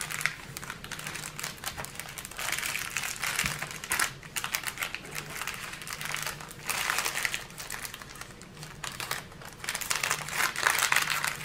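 Crinkling of the plastic bags of diamond-painting drills being handled and folded by hand, continuous and louder in several stretches.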